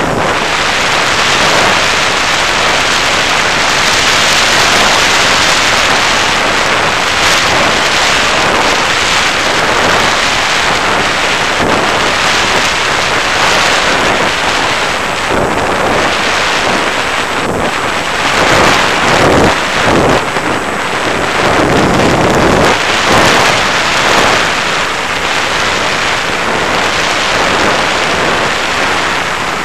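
Wind rushing over the microphone of the action camera on an FPV model plane in flight: a loud, even rush of noise that swells and eases, most unsettled around twenty seconds in.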